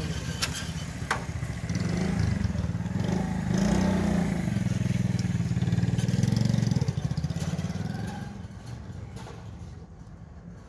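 An engine runs close by, getting louder over the first few seconds and fading away after about seven seconds, the way a passing motor vehicle does. Two sharp clicks come in the first second or so.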